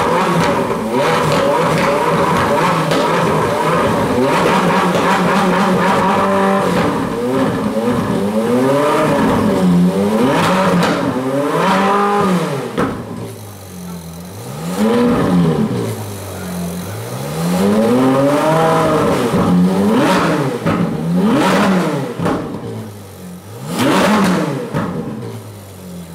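Ferrari 458 Speciale's 4.5-litre V8 running steadily at a raised idle, then revved in a series of about eight blips, each rising and falling in pitch and dropping back toward idle between them.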